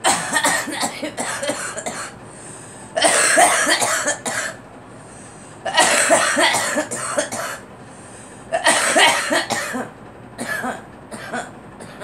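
A woman coughing in repeated fits: about five loud bouts a few seconds apart, each a quick string of coughs.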